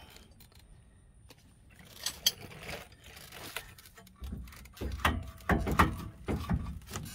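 2012 Ford F-350 rear brake caliper being worked off its rotor by hand, its metal clicking and clunking. A few light clicks come about two seconds in, then a run of metallic knocks and scrapes fills the last three seconds.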